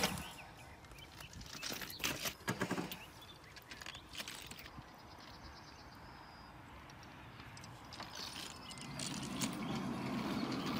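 Sharp metallic click as a hand sets the rail probe of a Krab-S-Light manual track-measuring trolley, then a few knocks of handling about two seconds in. Near the end the trolley's wheels start rolling along the rails with a low rumble that grows louder.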